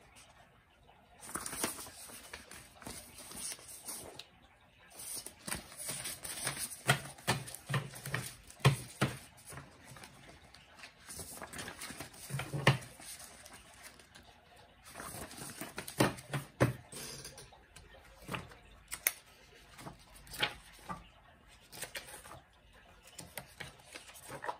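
Loose newspaper sheets handled and shuffled: paper rustling and crackling in bursts with short pauses, with near the end pages of a paper book being flipped.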